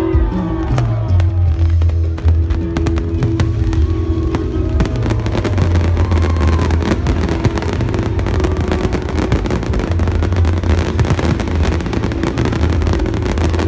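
Fireworks display: repeated bangs of aerial shells that thicken into a dense, continuous crackle about five seconds in, with music playing underneath.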